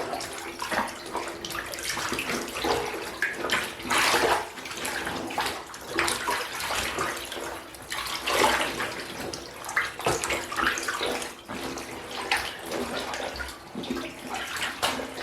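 Water sloshing in a bathtub as a soaked fleece cage liner is squished and kneaded by hand in vinegar water, in uneven surges every second or two.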